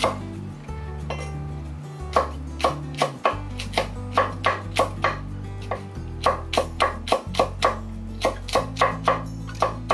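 A wide-bladed kitchen knife slicing green chili peppers on a wooden cutting board: sharp, even chops about three a second, starting about two seconds in. Background music with a low bass line runs underneath.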